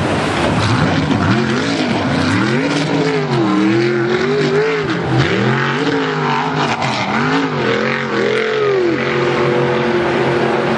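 Race jet boat's engine running hard through whitewater rapids, its pitch revving up and down over and over as the boat bounces through the waves, then settling to a steadier pitch near the end, over the constant rush of spray and water.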